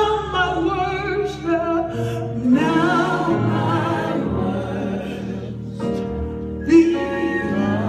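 A woman singing gospel vocal runs with wide vibrato through a microphone in three long phrases, over held keyboard chords.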